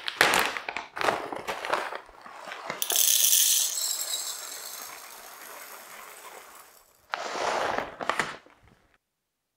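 Green coffee beans poured into a glass mug: a dense rattling cascade of hard beans hitting the glass, loudest about three seconds in and trailing off as the mug fills. A few clicks and knocks come before the pour and again near the end.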